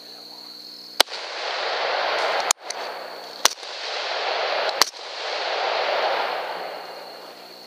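Three rifle shots about a second in, three and a half seconds in and almost five seconds in, the last two close together. Each crack is followed by a second or more of rushing noise that swells and fades.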